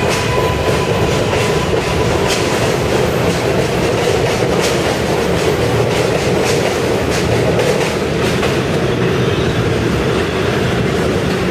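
New York City Subway R188 train pulling out of an elevated station and picking up speed, with a steady loud running rumble and occasional sharp clicks from the wheels. A thin high steady tone fades out in the first few seconds.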